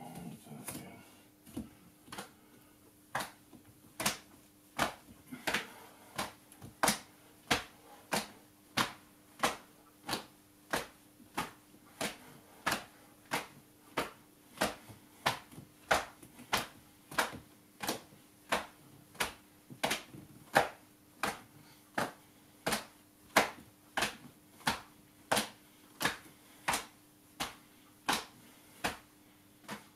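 Sharp clicks or snaps repeating at a steady pace, about three every two seconds, over a faint steady hum.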